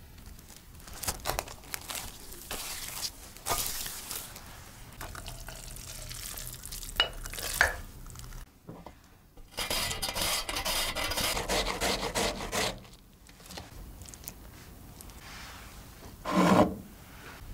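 Close-miked food-prep handling sounds: scattered light clicks and taps of glass bowls and gloved hands, then about three seconds of steady rasping and rubbing, and one brief louder thump near the end.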